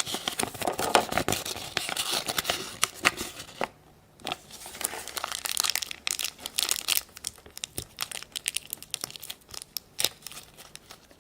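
Wrapper of a Shopkins surprise blind bag being crinkled and torn open by hand: a dense run of crackles and rips, with a short pause about four seconds in.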